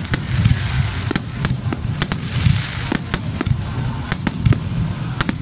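Aerial fireworks display: a rapid, irregular run of sharp bangs and deep booms, several a second, with crackling between them.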